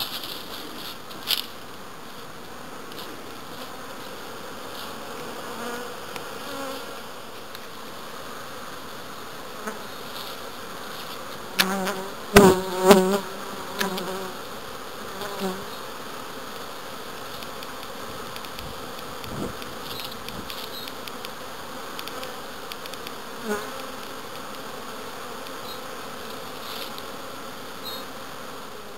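Honeybees buzzing around their hives. About twelve seconds in, a bee flies close past and its buzz comes up loud for two or three seconds; fainter passes come a couple more times.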